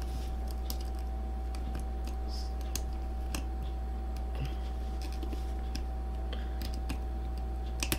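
Scattered light clicks and taps of small action-camera parts being handled and fitted back together, over a steady low electrical hum with a faint steady whine.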